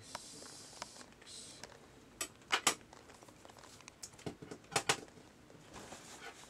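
Handling noise: a brief rustling hiss near the start, then scattered sharp clicks and taps, some in quick pairs.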